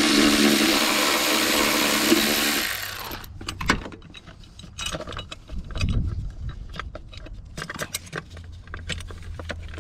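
Cordless power tool spinning a deep 10 mm socket to unscrew the battery hold-down bracket's nut, a steady whir that stops about three seconds in. After it come light metallic clinks and clicks as the loosened bracket and nut are handled.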